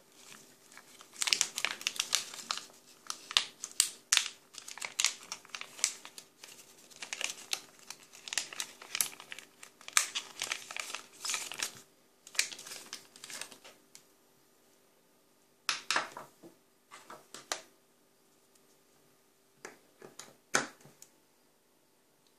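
Rigid clear plastic packaging crinkling and crackling in dense bursts as it is handled and opened, for about twelve seconds. After a pause come a few separate clicks and knocks as the USB LED lamp is taken out and plugged into a power bank.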